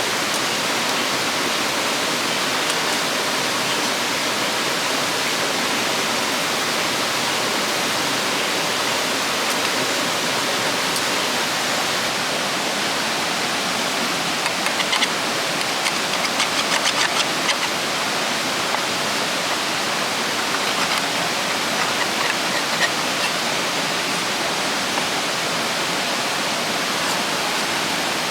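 River water rushing steadily, an even hiss of flowing water. Faint clicks and taps come through it about halfway through.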